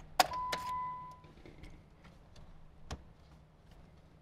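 Ignition of a Jeep Wrangler JK being switched off: a couple of sharp key clicks, then a single electronic beep about a second long, followed by a few light clicks of hands on the dash.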